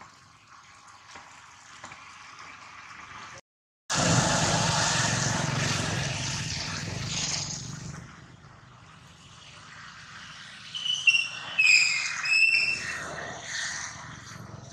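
A loud, even rushing noise for about four seconds, starting just after a brief dropout. Then comes a run of high-pitched squealing cries from a baby macaque, the loudest sounds here.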